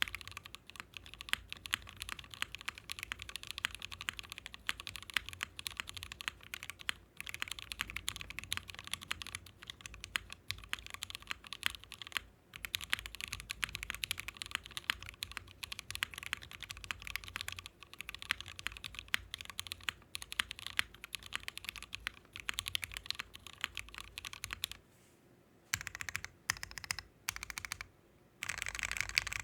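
Fast, steady typing on a custom mechanical keyboard: lubed and filmed Gateron Ink linear switches with 205g0 lube in an FR4 half-plate on a flex-cut PCB, each keystroke a clack. The builder finds this build hollow-sounding. Near the end the typing breaks into a few short bursts with pauses between them, then picks up again.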